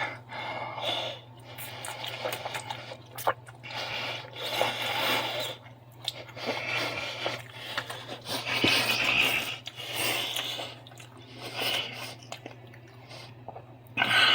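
A fork clinking and scraping against a bowl as it works through saucy spaghetti, in irregular bursts of clicks and wet rubbing.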